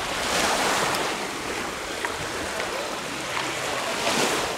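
Small waves breaking and washing on a sandy sea beach, the surf swelling twice.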